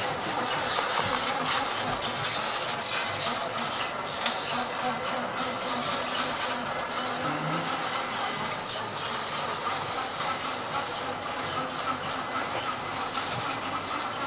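Radio-controlled model trucks driving, a steady mechanical running noise from their motors and drivetrains.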